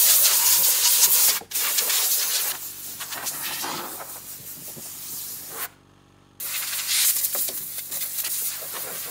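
Compressed air from an air-hose blow gun hissing as it blows a ride-on mower clean. The hissing is loud over the first couple of seconds, with a short break about a second and a half in. After that it is quieter, with a brief stop a little past the middle.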